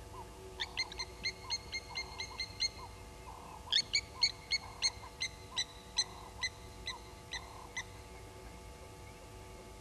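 Blacksmith lapwings giving their sharp metallic 'tink' alarm calls, like a hammer striking an anvil, in two quick runs of about four notes a second; the second run is louder. The calls are the birds mobbing an African harrier-hawk on the ground.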